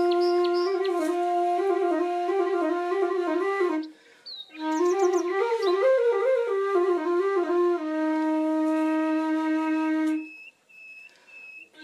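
Flute music playing a melody, with a long held note near the end. The music breaks off briefly about four seconds in and again just before the end, leaving faint high chirps.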